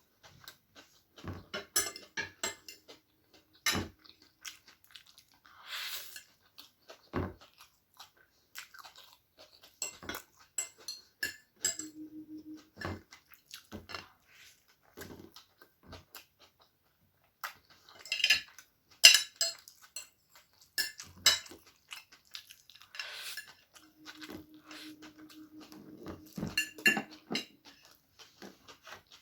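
Eating egg chow mein: noodles being chewed, with cutlery clicking and scraping on a plate in many short, sharp ticks.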